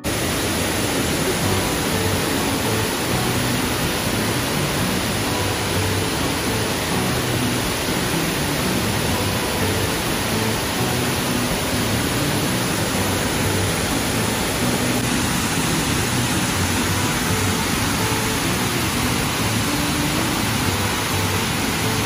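Nunobiki Falls pouring: a loud, steady, even rush of falling water.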